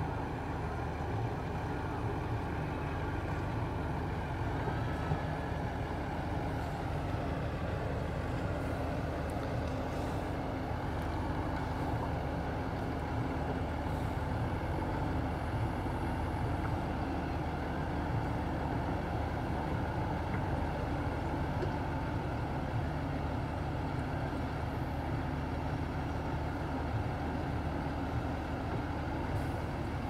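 Diesel engines of a JCB backhoe loader and a tipper truck running steadily as the backhoe pushes the stranded truck, a constant drone with no sharp changes in revs.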